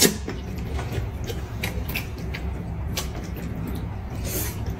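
Noodles being slurped and eaten with chopsticks: several short slurps and clicks, then a longer slurp near the end, over a low steady hum.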